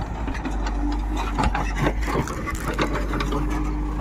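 Backhoe loader's diesel engine running steadily, with scattered knocks and rattles over it.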